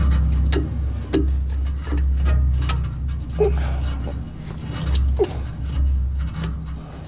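Metal clicking, tapping and scraping from a wrench and clutch-cable parts being worked into place in a car's footwell, with irregular short taps, over a steady low hum.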